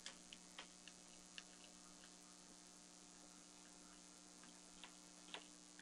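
Near silence: a faint steady electrical hum with a few scattered faint ticks.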